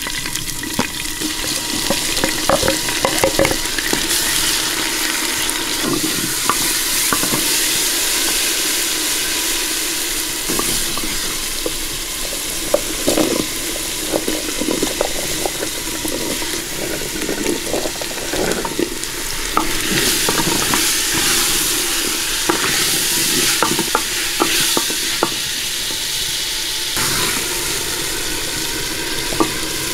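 Food frying and sizzling in a black stone pot while a wooden spoon stirs, scraping and knocking against the pot's sides; cubed potatoes are tipped in partway through.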